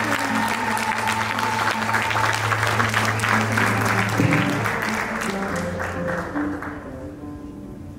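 Audience applauding and cheering over oud playing; the clapping dies away about two-thirds of the way through, leaving the oud's notes.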